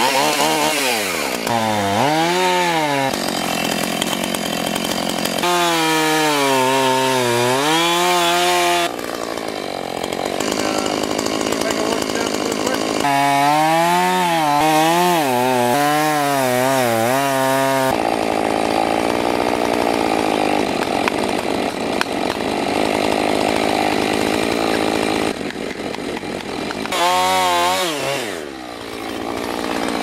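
Husqvarna 445 two-stroke chainsaw with a 16-inch bar cutting into the butt of a 24-inch eastern white pine to fell it. The engine revs up and down in stretches, and for long spells runs at a steadier, lower note with the chain in the wood. Near the end it revs once more and then drops away.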